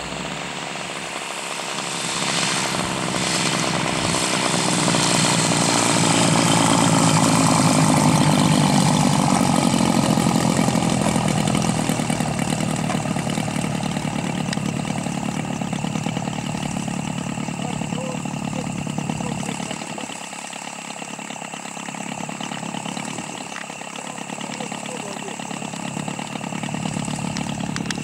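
Engine of a large radio-controlled An-2 biplane model throttled back on its landing approach, its pitch falling and its sound growing louder as it comes close, then running at low throttle as the model rolls along the runway.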